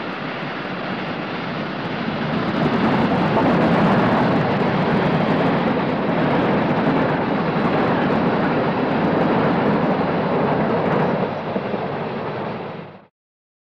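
NSWGR 38 class 4-6-2 steam locomotive passing at speed with a passenger train: a steady rush of engine and rolling-train noise. It grows louder about two seconds in, eases slightly near the end, then cuts off abruptly.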